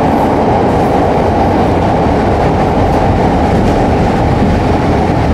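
Steady rumble of wheels on rail and running gear, heard from inside a moving Chicago 'L' 2600-series rapid-transit car.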